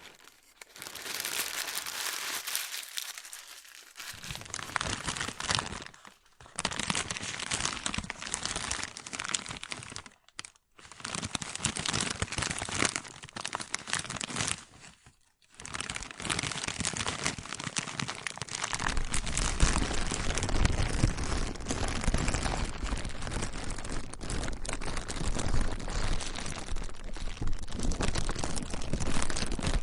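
Plastic being crinkled and crumpled by hand, a dense crackling that comes in stretches with brief pauses about six, ten and fifteen seconds in. Over the last third it grows fuller, with a low rumble underneath.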